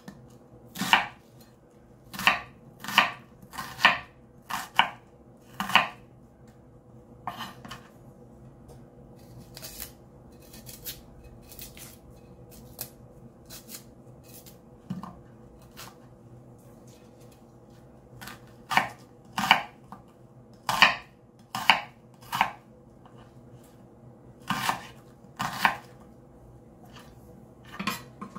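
Chef's knife chopping a red onion on a bamboo cutting board: sharp knocks of the blade on the board, about one a second, in a run at the start and another from about two-thirds of the way through, with softer slicing ticks between.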